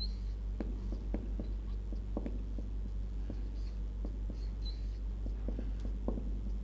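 Dry-erase marker writing on a whiteboard: a string of short, irregular scratches and taps as the letters are drawn, over a steady low hum.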